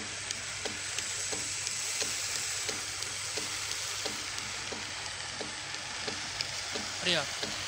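TECO electric motor running a flat belt drive, with a steady hum and hiss and a regular light click about three times a second.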